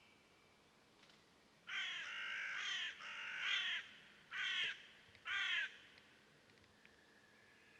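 A bird giving a series of about six harsh calls, starting about two seconds in: the first four run together, then two more come separately.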